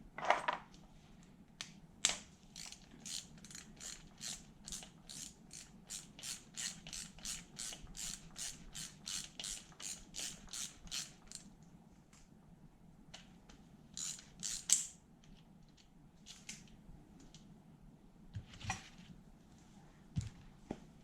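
Socket ratchet clicking in a steady run, about three clicks a second, as fasteners on a small motorcycle engine are undone during teardown. A few louder separate knocks from tools and parts come at the start and later on.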